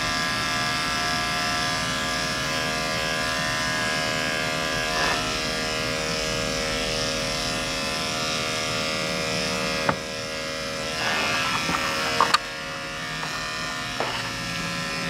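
Andis electric dog clipper running with a steady buzz as it shaves a Yorkie puppy's coat, with a few sharp clicks in the second half.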